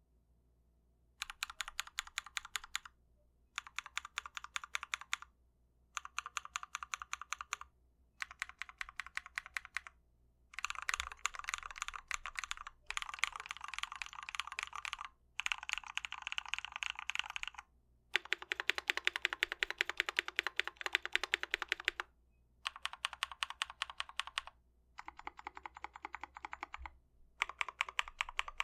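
Typing on a custom KBD75v2 mechanical keyboard with Krytox-lubed Glorious Panda tactile switches and PBT keycaps. Fast runs of keystrokes come in bursts of one to three seconds, broken by short pauses.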